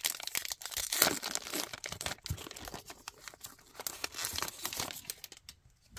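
Trading cards being handled by hand: dense crinkling and rustling with many small sharp clicks as cards are flipped and shuffled, dying down near the end.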